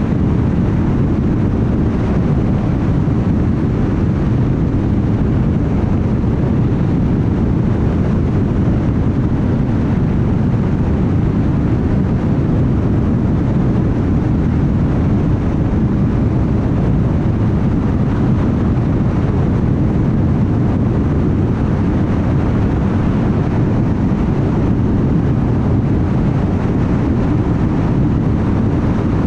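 Steady road and tyre noise of a car cruising at highway speed: an even, low rumble with no distinct events.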